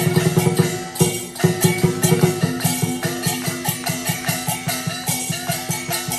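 Music with a steady beat: held pitched notes over quick, even percussion.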